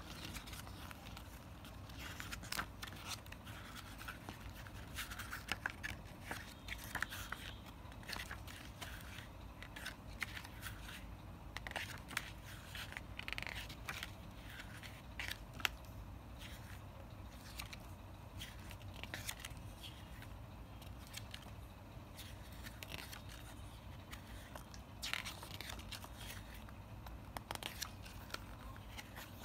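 Glossy paper booklet being handled and its pages turned, with scattered rustles, scrapes and light clicks.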